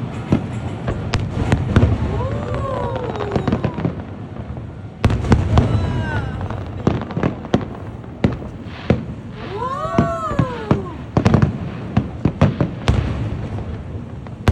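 Fireworks display: a quick series of sharp bangs and crackles from bursting shells over a steady low rumble, with a pitched tone that rises and falls about two seconds in and again about ten seconds in.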